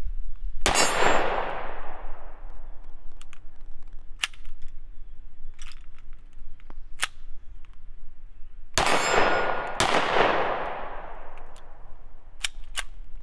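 Hi-Point C9 9mm pistol firing: three loud shots, one about a second in and two close together about nine seconds in, each trailing a long echo. Several shorter, sharper cracks fall between them.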